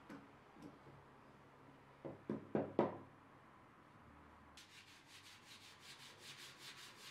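Gloved hand brushing wood shavings off a small pine board, with three knocks of the wooden board about two to three seconds in. From about halfway through, rapid back-and-forth hand sanding of the wood with a sanding disc, about five strokes a second.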